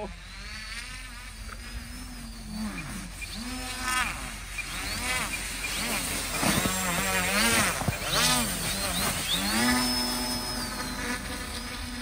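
Twin 950 kV brushless electric motors with propellers on a remote-control inflatable raft, buzzing with a pitch that rises and falls over and over as the throttle is worked in short bursts.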